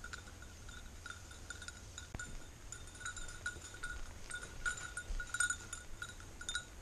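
Small bell on a working springer spaniel's collar tinkling in irregular jingles as the dog hunts through brush, a little louder about two-thirds of the way through. A faint low rumble of wind on the microphone lies underneath.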